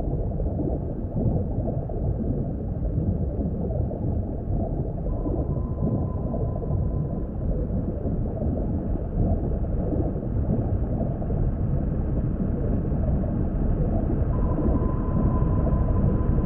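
Low, muffled underwater rumbling ambience, steady throughout, with a faint thin tone that comes in about five seconds in and again near the end.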